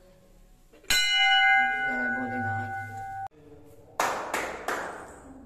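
Brass temple bell struck once, ringing with several clear tones for about two and a half seconds before cutting off suddenly. About a second later come three short hissing bursts in quick succession.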